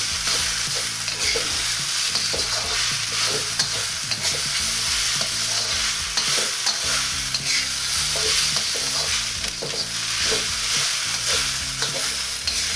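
Fried rice in ketchup sauce sizzling in a metal wok over medium-high heat, with a metal wok ladle scraping and tossing it in repeated strokes. This is the stage where the rice is dried out slightly and the flavours condensed.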